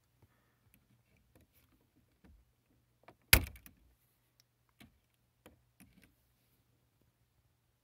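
Needle-nose pliers clicking and tapping against the small bulb and the plastic socket of an MK4 Golf's climate-control fan switch while trying to grip the bulb. About a third of the way in comes one sharp, loud click, as of the jaws slipping off the bulb, among scattered faint taps.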